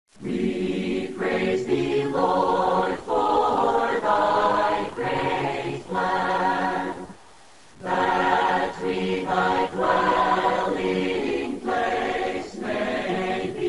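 Choir singing a cappella in short phrases, with a brief pause about seven seconds in.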